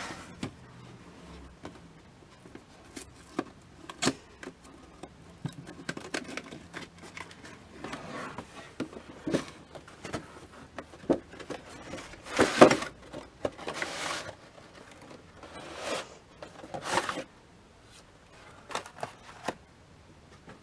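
A cardboard doll box being handled and opened: the box sliding out of its cardboard sleeve and its lid coming off, with scattered taps, scrapes and rustles of cardboard and packaging. The loudest is a longer scraping rush about halfway through.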